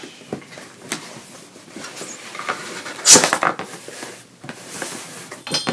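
Cardboard packaging being handled: a printed outer box sleeve sliding off an inner brown cardboard box, with scattered rustles, scrapes and light knocks, and one louder scrape about three seconds in.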